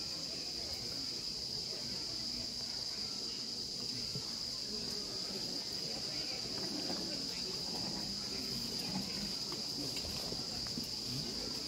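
Steady high-pitched drone of insects calling in chorus, one unbroken band of sound, with faint murmured voices underneath.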